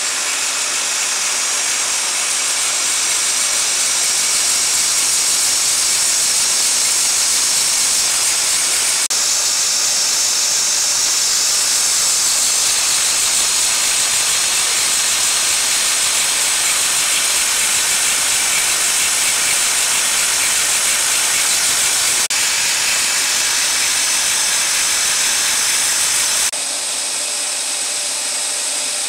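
An industrial converting machine runs, feeding a white web of material over rollers and through a rotary cutter. It makes a steady high hiss with a mechanical rush underneath. The sound changes abruptly a few times and is a little quieter near the end.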